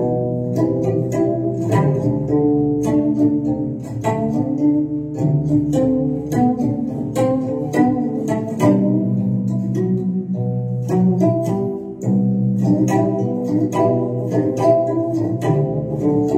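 Instrumental music on plucked strings, guitar-like, with many notes picked in quick succession.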